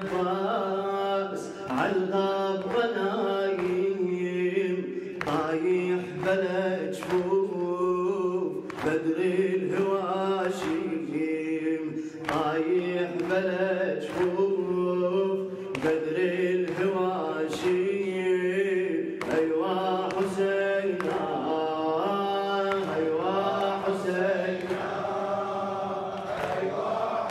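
Male voices chanting a Shia latmiya mourning lament for Imam Husayn over a steady low drone. Regular sharp beats of mourners' chest-beating (latm) run through it.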